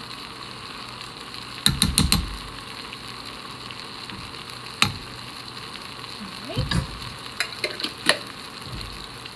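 Onions sizzling on the sauté setting in an Instant Pot, with a spoon knocking and scraping as the last Dijon mustard is spooned out onto them. There is a quick cluster of knocks about two seconds in, one sharp knock near the middle, and a few more taps and scrapes later on.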